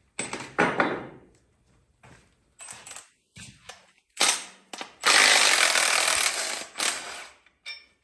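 Metal parts knocking against each other a few times, then a hand ratchet wrench clicking fast for about two seconds as bolts are run off the engine.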